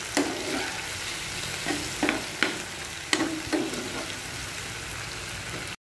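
Chopped onion and tomato sizzling in hot oil in a nonstick kadai, with a steady hiss. A metal spatula stirring them scrapes and taps against the pan several times.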